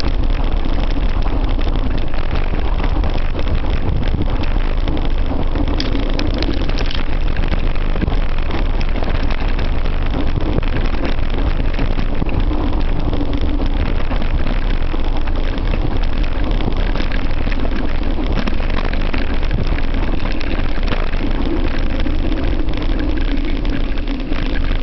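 Off-road motor vehicle's engine running steadily as it rides along a rough dirt trail, its note wavering a little.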